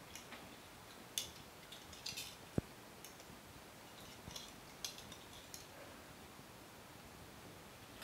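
Metal fork and spoon clinking and scraping lightly against a plate while spaghetti is twirled, a few faint scattered clicks with one sharper click a little over two seconds in.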